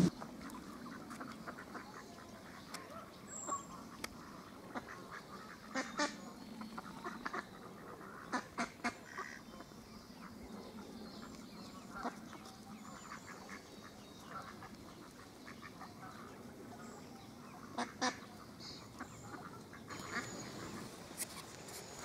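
Mallard hen and ducklings calling: short, soft calls scattered through, the loudest around six seconds, eight to nine seconds and eighteen seconds in.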